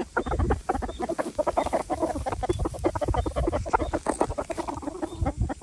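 Domestic chickens clucking softly and rapidly, with a few short high chirps.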